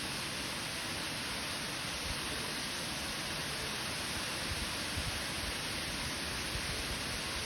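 Steady rush of flowing water, such as a stream or small waterfall, with a few faint low bumps around the middle.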